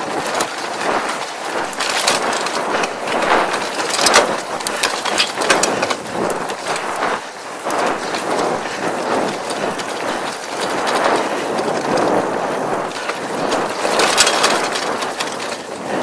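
Mongoose Tyax mountain bike rolling fast along a dirt road: tyres crunching over dirt and grit, with the bike rattling and clicking over bumps.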